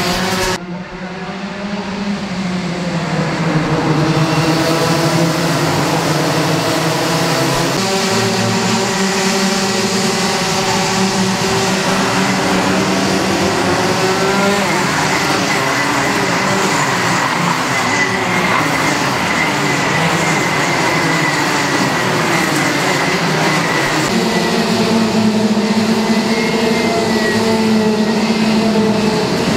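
A pack of two-stroke racing kart engines running hard as the karts pass, several engine notes at once, their pitch rising and falling through the corners. The sound shifts abruptly a few times, about half a second in, near a third of the way through and again near the end.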